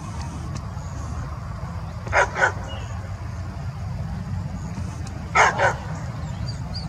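A large dog barking: two quick double barks about three seconds apart, over a steady low rumble.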